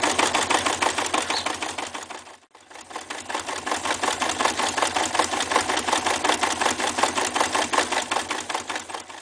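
Reads 300 electric zigzag sewing machine stitching through a leather belt: a fast, even clatter of the needle mechanism. It slows and stops about two and a half seconds in, then starts again and runs on sewing a zigzag stitch.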